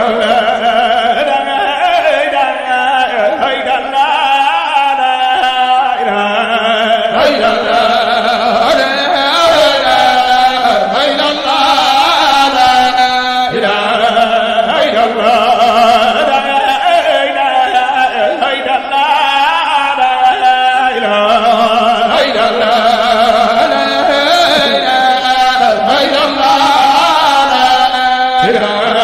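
A man chanting an Arabic religious poem in long, wavering melodic phrases.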